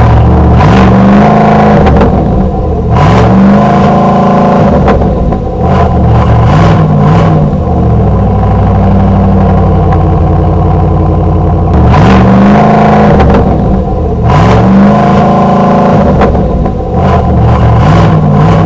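2025 Chevy Silverado 1500 Z71 Trail Boss's 6.2-liter V8 engine and exhaust being revved, about six times, with the pitch climbing and dropping back to idle between each rev.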